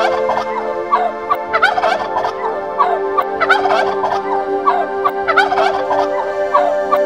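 Domestic turkey toms gobbling over and over: a burst of quick, warbling notes about every two seconds, with smaller calls between, over a steady low drone.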